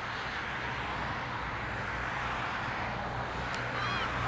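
Steady outdoor background noise on a sports field: an even hiss over a low hum. Near the end a single click is followed by a short high-pitched sound that rises and falls.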